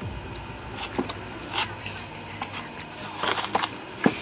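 Scattered light clicks, taps and scrapes of hard plastic and metal parts being handled: an outboard water-pump housing being worked down the driveshaft onto the lower unit's gearcase. The sounds come more often near the end.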